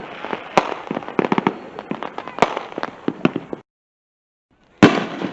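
Fireworks going off: a dense, irregular run of sharp crackling pops, several a second. The sound cuts out to dead silence for about a second, then comes back with a loud bang and more pops near the end.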